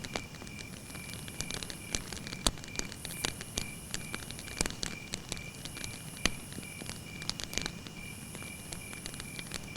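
Wood campfire burning and crackling, with irregular sharp pops throughout; two louder pops come about two and a half and six seconds in.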